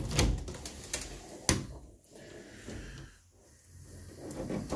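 White panelled bifold closet doors being pulled open, several sharp clacks and knocks within the first second and a half as the panels fold.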